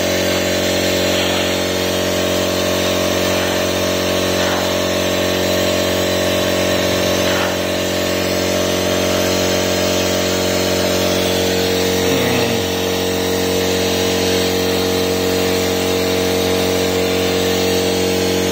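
A motor or engine running steadily at one constant speed, a loud even hum with a steady higher tone in it, and a few light knocks over the top.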